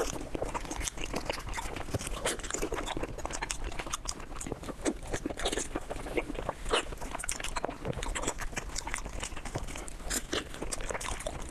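A person chewing and crunching food close to the microphone, with many crisp crunches in quick succession throughout.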